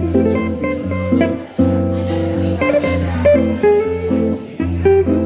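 Epiphone Broadway Elite archtop electric guitar played fingerstyle: plucked chords and melody notes over a sustained low bass note.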